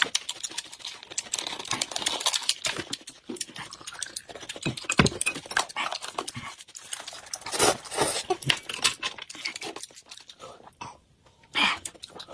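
Close-miked eating sounds: a quick run of wet clicks, smacks and chewing noises, thinning out to a few isolated bursts near the end.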